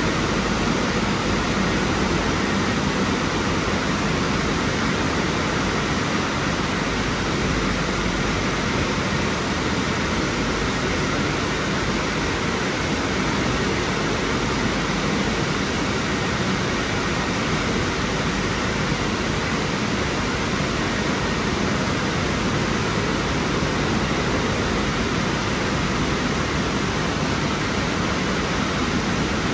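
Dryer blowers of a Washtec SoftCare Pro rollover car wash running in the drying stage, blowing air over the car in a steady, unbroken rush.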